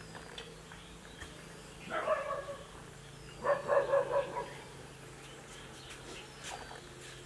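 A dog barking: one short bark about two seconds in, then a quick run of several barks a second and a half later, over a steady low hum.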